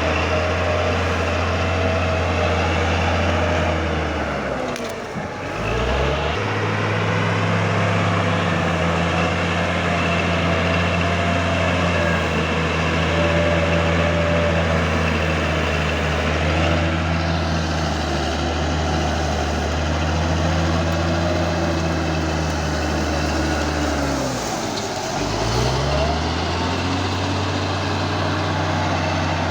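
Caterpillar D6G bulldozer's diesel engine running hard as it works. Twice, about five seconds in and again near the end, the engine speed drops sharply and then climbs back up.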